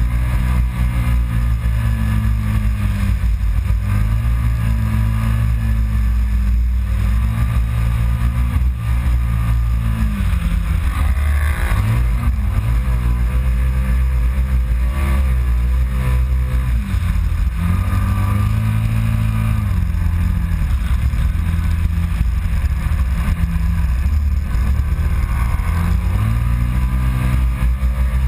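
Kawasaki Teryx side-by-side's V-twin engine, heard from on board while driving over sand dunes, its note rising and falling several times as the throttle is worked over the crests, with a steady rush of wind and drivetrain noise.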